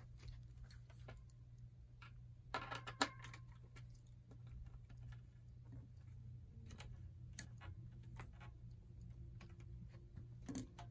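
Faint, scattered small metallic clicks and taps from a hex key working the pad bolt on a road bike's front rim brake caliper as the brake pad's height is adjusted, with a short louder clatter about three seconds in and a sharp tick near the end, over a steady low hum.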